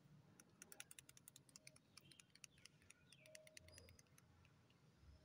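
Faint, rapid clicking, several clicks a second for about two and a half seconds, from a small touch-up paint bottle being shaken, its mixing ball rattling inside.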